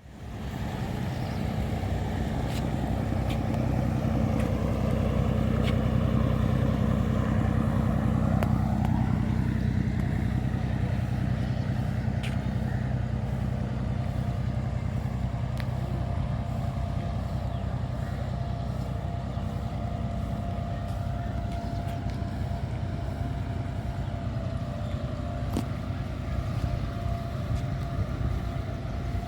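Boat engine running steadily with a low, even drone. A faint steady higher tone joins about halfway through.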